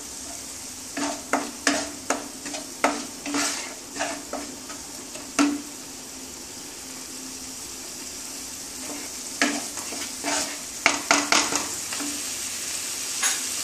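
Wooden spatula scraping and stirring a thick tomato-spice masala paste as it fries in oil in a nonstick kadai, over a steady sizzle. The masala is being sautéed (koshano). A run of scraping strokes comes in the first five or so seconds, then a pause with only the sizzle, then another run of strokes around ten seconds in.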